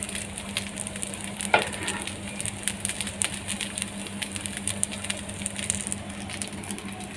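Oil sizzling and crackling under a semolina pancake on a nonstick tawa, over a steady low hum. One sharper click comes about one and a half seconds in.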